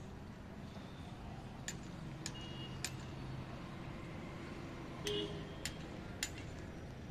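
Six sharp metallic taps in two groups of three, about half a second apart, some with a short ring after them, over a steady low hum.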